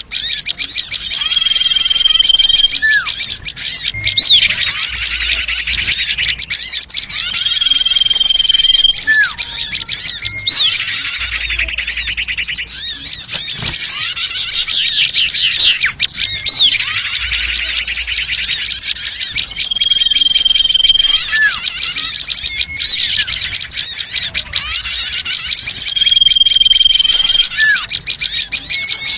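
Bird-lure recording of a mixed flock of small birds chattering and twittering densely at once, with a single held whistle that comes back every several seconds: a looped lure call played to draw in small birds.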